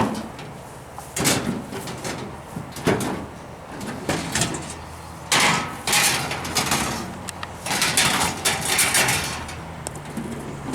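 Junk being handled and thrown off a truck: a run of separate knocks and clatters, then longer stretches of scraping and rattling near the middle and toward the end.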